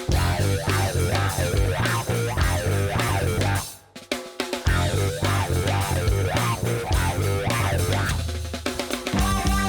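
Upbeat intro music with plucked guitar, bass and drum kit, dropping out briefly about four seconds in.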